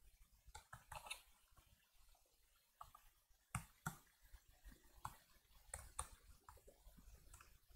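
Faint, irregular clicks of typing on a laptop keyboard, keys tapped in short scattered runs.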